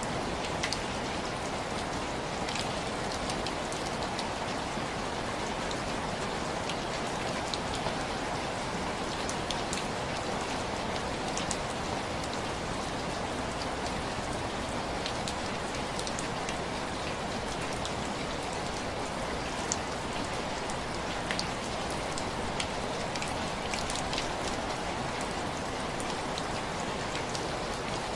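Heavy rain falling steadily, with scattered sharp crackles and pops over the even downpour.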